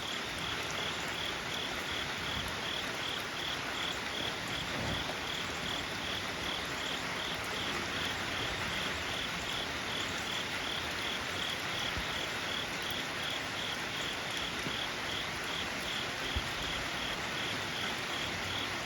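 Crickets chirping steadily, short high-pitched chirps at about two to three a second, over a steady background hiss.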